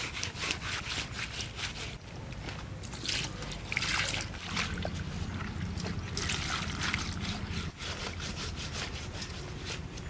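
Hands scrubbing a wet goat skin with a wad of green leaves: a wet rubbing and scraping in quick repeated strokes.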